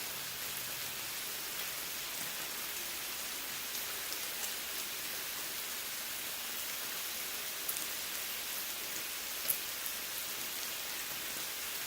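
Thin-sliced lamb sizzling steadily on a grill, with a few sharp pops in the second half.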